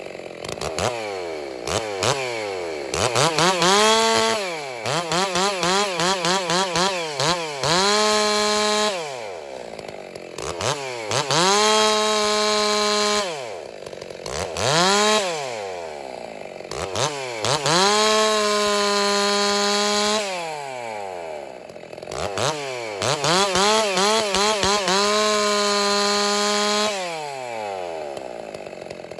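Ported Stihl 660-clone two-stroke chainsaw with a 28-inch bar, cutting wood with a freshly sharpened chain. It is repeatedly opened to full throttle and held there for a few seconds per cut, about five cuts, and drops back to idle in between with a falling pitch.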